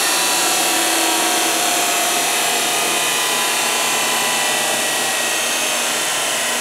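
Cincinnati Heald 273A universal internal grinder running under power: a steady mechanical whine and hiss from its motors and spindle, with a few faint tones drifting slightly in pitch.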